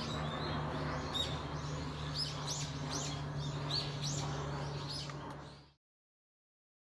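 Small birds chirping repeatedly, each call a short rising-and-falling note, over a steady low hum. The sound cuts off abruptly to silence near the end.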